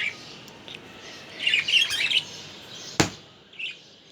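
Small caged pet birds chirping: a short chirp at the start, a burst of quick chirps around the middle and a brief chirp near the end. A single sharp click, the loudest sound, comes about three seconds in.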